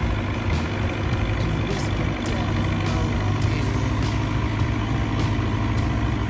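Fiat 80-66 DT tractor's diesel engine running steadily while pulling a plough.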